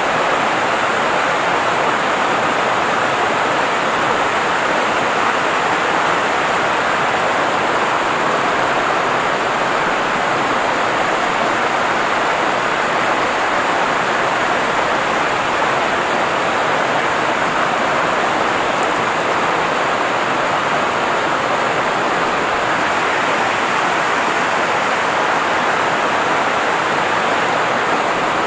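Rushing river water: a loud, steady rush that does not change.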